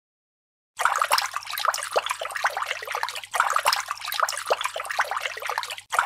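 Bubbling, trickling water sound effect: a dense run of quick pops that starts about a second in, with two short breaks.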